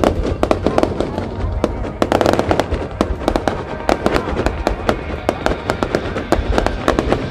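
Aerial fireworks display: a dense, irregular run of bangs and crackling from shells bursting overhead.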